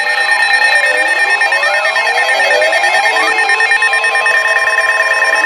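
Several emergency alert tones sounding at once: a steady weather-radio alert tone, a fast-pulsing beep, and tones that sweep up and down like a siren. Together they are the attention signal that opens a new severe thunderstorm warning broadcast.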